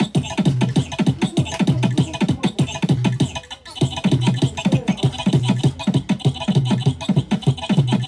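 Dance music beat with repeated low booming kicks, about four a second, breaking off briefly about three and a half seconds in.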